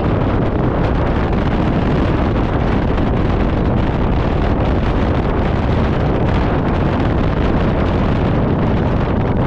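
Wind buffeting an action camera's microphone on a moving scooter: a loud, steady rumble of wind noise.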